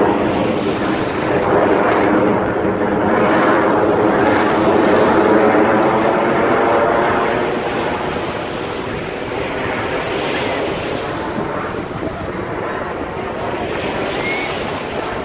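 Formation of jet aircraft passing overhead at an air show: a loud, continuous engine roar with a droning hum over the first several seconds, easing off gradually as the jets fly away, with wind buffeting the microphone.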